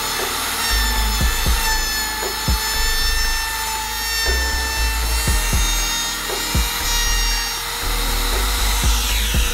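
Compact trim router running at full speed, its chamfer cutter cutting the edge of a drilled hole in a mahogany board: a steady high motor whine with the noise of the bit in the wood.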